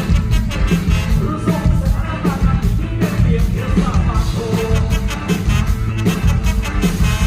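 Loud live Thai ramwong band music: a dense, steady drum beat under a wavering melody line.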